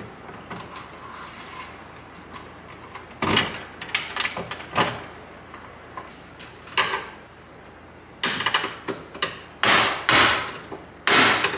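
Hand tools and stiff wires knocking, clicking and scraping against a metal breaker panel. The knocks come irregularly from about three seconds in, each with a short fading rattle, and grow louder and closer together near the end.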